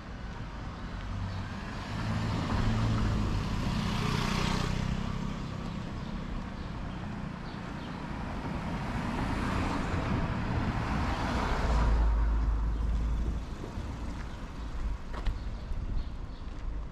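Road traffic: a motor vehicle's engine swells as it passes close by. A second, louder pass with a deep rumble follows and cuts off suddenly a little past the middle.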